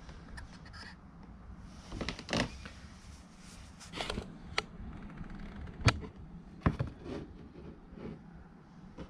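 Handling noises at a workbench: a string of irregular sharp clicks and short clatters, as small parts are picked up and set down, over a faint steady low hum.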